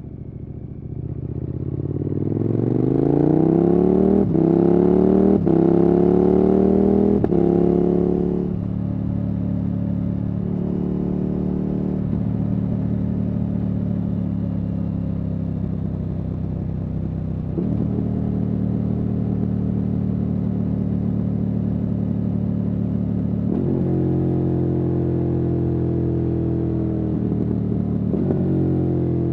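KTM 1290 Super Adventure S's V-twin engine through a Wings aftermarket exhaust, accelerating hard from about a second in. Its pitch climbs through the gears with brief breaks at the upshifts. It then settles into a steadier cruise, with a few more gear changes later on.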